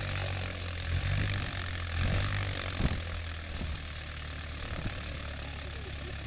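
Piston aircraft engine running steadily on a test stand, its propeller turning, with a low steady drone.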